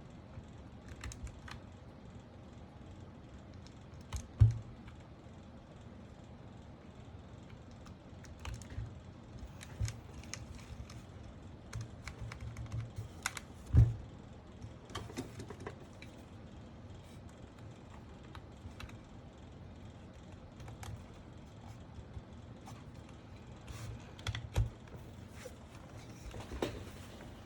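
Irregular plastic clicks and taps from a mechanical keyboard being handled during assembly, with two louder knocks, one about four seconds in and one near the middle.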